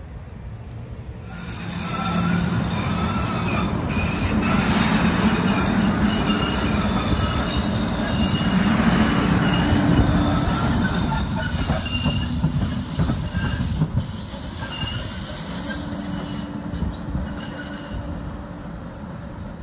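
MBTA Green Line light-rail train running along the tracks, its wheels squealing in several high tones that wander in pitch over the rumble of the wheels on the rails. The sound comes up about a second in and eases off towards the end as the train moves away.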